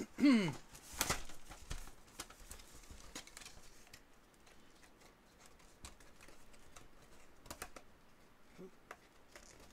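Trading card packs and their cardboard and plastic packaging being handled, giving light scattered clicks and ticks, with one sharper click about a second in. A short falling tone comes right at the start.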